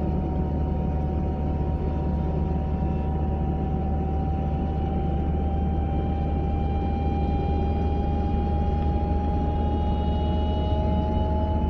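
Volvo 940 driving with heavy road rumble and a clear whine from the passenger side that climbs slowly in pitch as the car picks up speed. This is the unexplained noise the owner hears at 30 to 40 mph.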